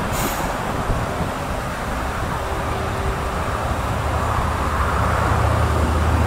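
A motor vehicle's engine running, with a steady low hum that grows louder over the last couple of seconds, over a broad rushing background noise.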